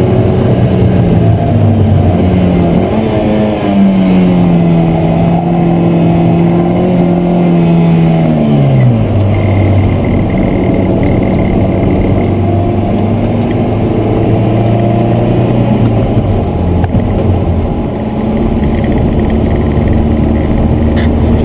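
Opel Speedster's naturally aspirated 2.2-litre four-cylinder, heard from inside the cabin under hard driving. The revs climb a few seconds in and hold, fall steeply about nine seconds in, then run lower and steadier for the rest.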